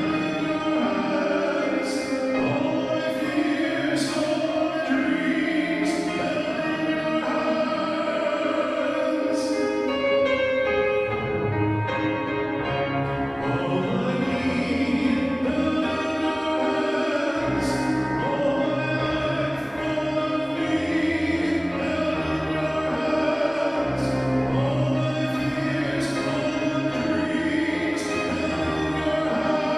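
A worship song: singing with long, wavering held notes over instrumental accompaniment, with light, crisp percussive strikes now and then.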